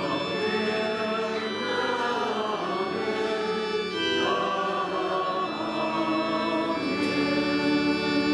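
Church organ holding sustained chords while a man sings slowly along with it. The chord changes about four seconds in and again near the end.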